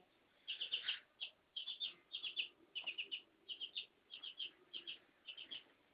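Small bird chirping: short, high chirps in quick clusters of two to four, repeating steadily.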